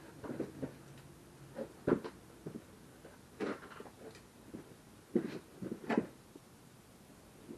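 A handful of short, irregular knocks and clicks, the loudest about two seconds in: hand tools and hardware being handled during a metal handrail installation.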